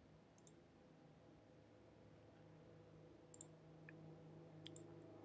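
Near silence with a faint steady hum, broken by a few faint computer-mouse clicks, one near the start and several in the second half.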